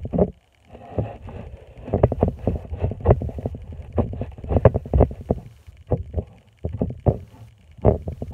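Butter slime squished and stretched between the hands: a dense, irregular run of quick squishes and small pops.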